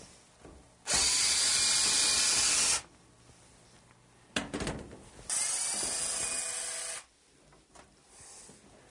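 Cordless drill running steadily in two spells of about two seconds each, with a few short knocks and clicks between them.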